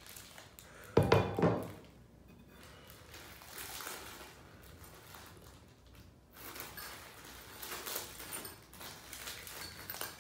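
A couple of loud thunks about a second in as a frame bar of a pet bed is set down on the floor, followed by quieter rustling and small clicks of hardware being handled.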